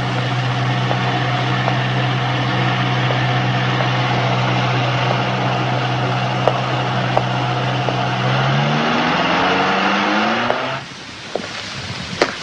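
A motor drones steadily at a low pitch over a hiss, with a few sharp clicks. About eight seconds in it rises in pitch for a couple of seconds, then cuts off suddenly.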